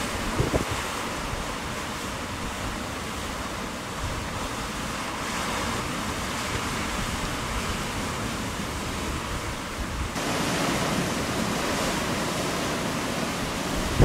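Heavy surf breaking over granite rocks, a continuous rough-sea roar, with wind rumbling on the microphone. The roar turns a little louder and brighter about ten seconds in.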